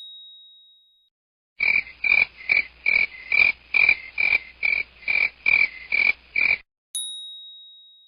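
A frog croaking in an even rhythm, about a dozen croaks at roughly two a second, then stopping. Near the end a single high ding is struck and rings down; at the start the ring of an earlier ding fades out.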